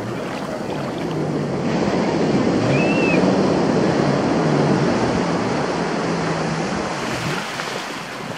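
Surf washing in over the beach: a rush of foaming water that builds about two seconds in and eases off near the end.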